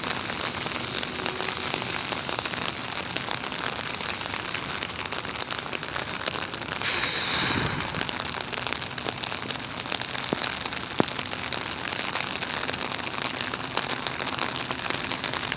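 Steady rain falling, a dense even hiss with fine crackle of drops close to the microphone. About seven seconds in, a louder hiss swells up and fades away over about a second.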